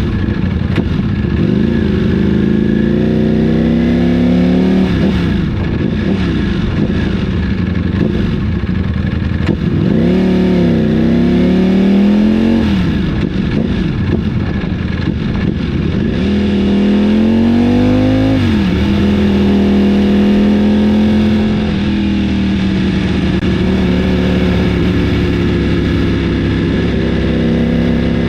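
Ducati Panigale V4's Desmosedici Stradale V4 engine running, its revs rising and falling several times. It climbs in one long rise, drops sharply about two-thirds of the way in, then holds a steady note.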